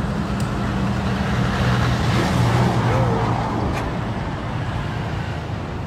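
A large bus passes close by, its engine hum fading about three seconds in, followed by a car and motorbikes passing over steady road traffic noise.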